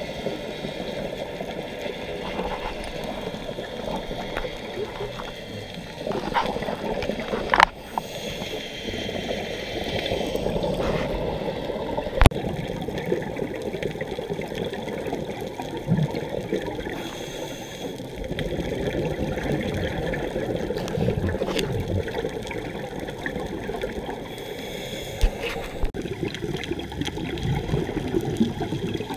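Muffled underwater sound heard through a dive camera's housing: a scuba diver's regulator breathing, with gurgling exhaled bubbles swelling in surges every several seconds. Two sharp clicks stand out, the loudest sounds.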